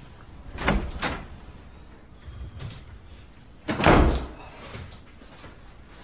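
A door being handled: two sharp clicks a second or so in, then a louder thud of the door shutting a little past the middle.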